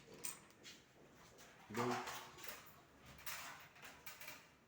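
Mostly quiet room with a brief, faint voice about two seconds in and a few soft clicks of handling.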